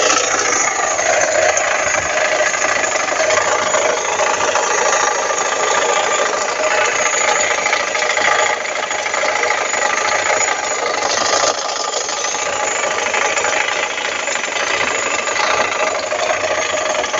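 Fiat Palio 1.5 8V Fiasa engine idling with a steady growl ("ronco") that the owner takes for a failed water pump.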